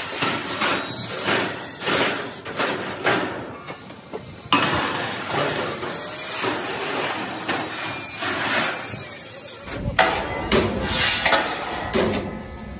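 Heavy steel sheets being shifted onto a steel I-beam frame: repeated metallic clanks and knocks with scraping of plate on steel.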